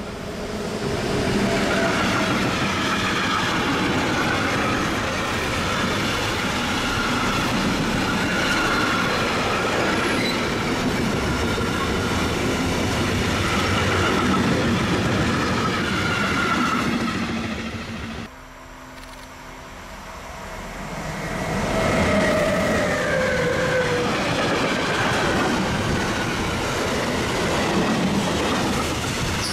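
Electric-hauled container freight train rolling past, the wagons' wheels running and clattering on the rails with some wheel squeal. About two-thirds through the sound drops away abruptly, then builds again as more container wagons pass close by.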